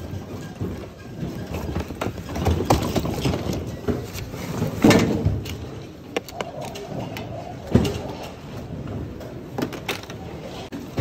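Rummaging through a bin of mixed secondhand goods: items rustling and clattering with irregular knocks, the loudest about five seconds in and again near eight seconds, over background chatter.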